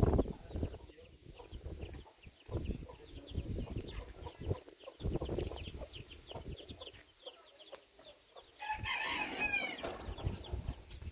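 A rooster crows once, a little over a second long, near the end, over steady chirping of small birds and a few soft knocks.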